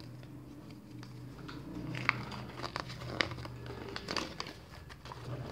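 Folded paper instruction leaflet being unfolded and handled, crinkling and rustling, with a few sharper crackles of the paper about two, three and four seconds in.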